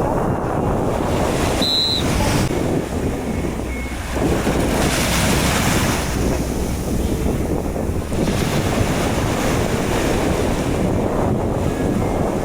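Sea surf washing onto a beach, with wind buffeting the microphone; the surf swells up about four seconds in.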